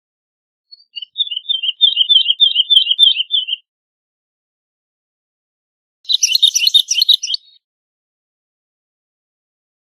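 Woodlark singing: two separate phrases of quick repeated notes. The first is a run of paired notes lasting about three seconds; the second, starting about six seconds in, is shorter and denser and reaches higher.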